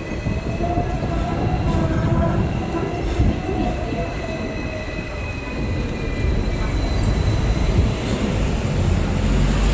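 A heavy vehicle rumbling past, with high squealing tones over the first three seconds.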